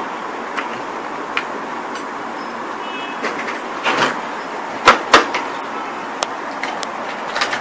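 Plastic diffuser plate and reflector sheet of an LED TV's backlight being lifted and handled: a few short clattering knocks, the two sharpest close together about five seconds in, over a steady background hiss.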